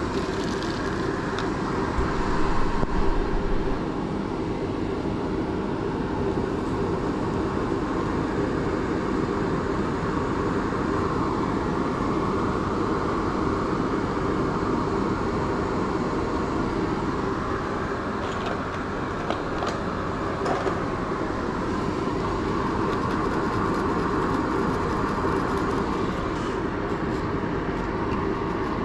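A fan running with a steady whooshing noise, with a few light clicks about two-thirds of the way through.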